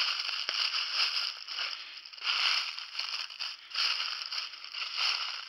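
Footsteps crunching through deep dry fallen leaves, a crunch with each step at about one a second.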